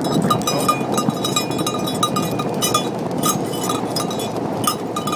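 Husky team pulling an ATV at a run: a steady rolling rumble of the ATV's tyres on the road, with quick, even, bell-like metallic clinking, about three or four a second, from the dogs' harness gear.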